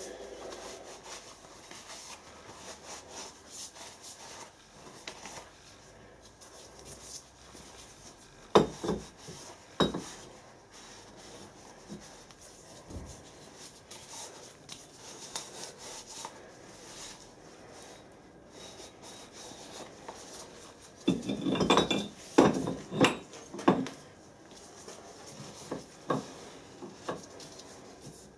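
Cloth wiping and rubbing over a metal tractor half-shaft bearing housing as it is cleaned by hand. Sharp metal knocks and clinks come about eight and ten seconds in, and a cluster of louder clunks about twenty-one to twenty-four seconds in, as the housing is handled.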